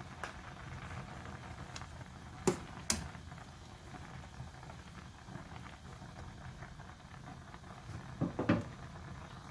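Spicy rice-cake broth (tteokbokki) bubbling at a boil in a saucepan. Metal tongs knock against the pan twice, sharply, about two and a half seconds in, and a few more times near the end.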